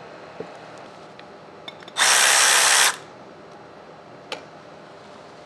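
Cordless power tool run in one short burst of about a second, about two seconds in, with a few light handling clicks around it.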